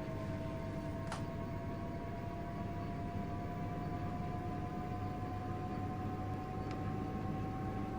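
Front-loading washing machine running, its drum motor whining steadily and slowly rising in pitch as the drum picks up speed, over a low rumble from the drum. There are two faint clicks, about a second in and near the end.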